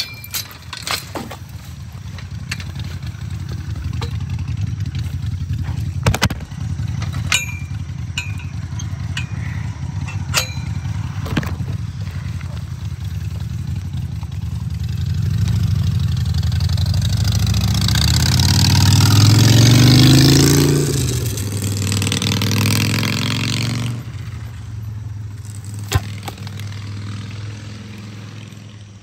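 A motor engine running steadily, growing louder to a peak about twenty seconds in and dropping away a few seconds later, with a few sharp knocks along the way.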